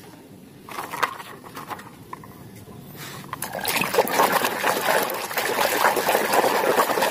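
A hand swishing and scrubbing through a plastic basin of muddy water. It starts about halfway in and splashes on steadily after a few faint knocks.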